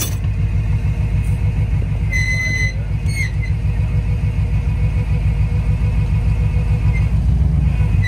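Wrecker's engine idling with a steady low rumble, with short high-pitched squeaks about two and three seconds in.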